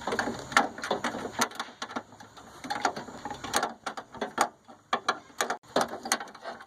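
A hand ratchet clicking in quick runs with short pauses as a screw is tightened down.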